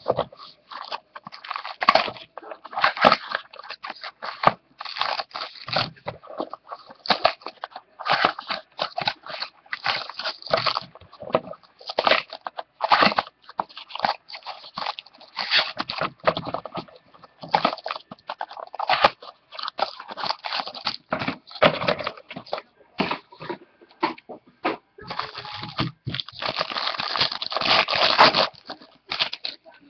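Foil trading-card pack wrappers crinkling as the packs are opened and the cards handled. The crackling comes in irregular bursts and is densest near the end.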